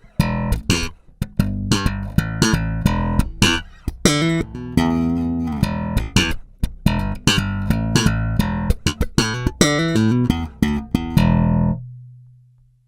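Cort Space 5 headless five-string electric bass played solo without backing: a fast slapped line of sharp, percussive notes that ends near the end on one held low note fading out.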